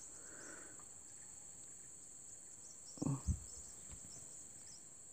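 Insects chirping: a steady high drone with short chirps repeating over it. About three seconds in there is a brief double knock-like sound close by.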